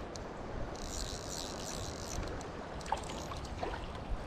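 Shallow river water rushing and lapping steadily close to the microphone, with a brief brighter hiss about a second in and a couple of faint ticks near the end.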